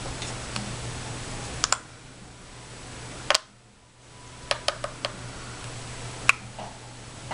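A scatter of sharp, irregular clicks and taps of small makeup containers and brushes being handled, some in quick pairs, the loudest near the end.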